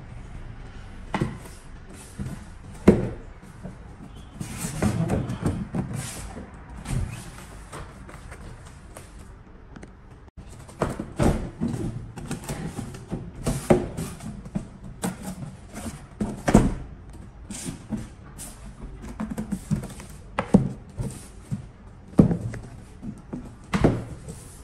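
Corrugated polypropylene folding box being unfolded and folded by hand: irregular sharp knocks and clacks as the plastic panels and flaps snap into place and bump the wooden desk, with rustling and scraping of the hollow plastic sheet between them.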